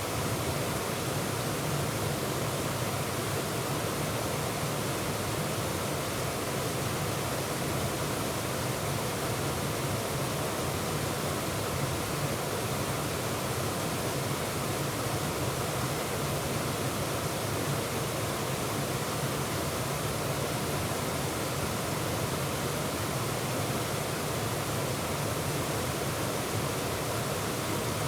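Waterfall and rushing water, a steady, unbroken roar of falling water.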